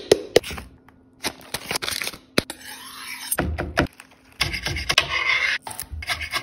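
Kitchen prep sounds in quick succession: sharp clicks and knocks, two stretches of rustling noise, and a chef's knife chopping fresh herbs on a cutting board near the end.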